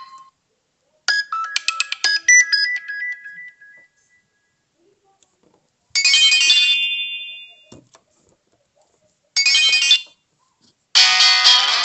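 Four short Nokia 300 phone ringtones play one after another, each a brief burst of bright electronic notes that rings off, with silence between. The first is a quick flurry of notes that settles into held tones fading over about two seconds. The last begins just before the end.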